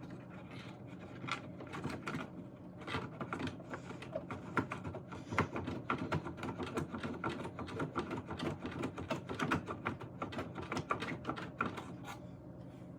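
Irregular clicking and scraping of a screwdriver working small flathead screws out of the speaker mount of a 1938 Zenith radio, with the light clatter of metal parts being handled. It stops shortly before the end.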